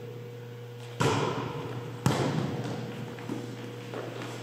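Volleyball struck twice about a second apart, as in a serve followed by a pass: two sharp slaps, each echoing through a large gymnasium. A steady low hum runs underneath.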